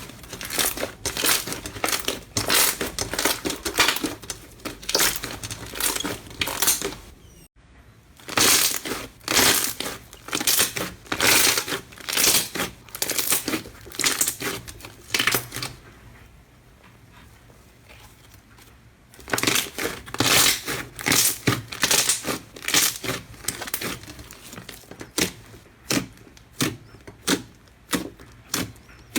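Slime being squeezed and pressed by hand, giving dense runs of rapid crackling pops, with a sudden break about seven seconds in and a quieter lull a little past halfway.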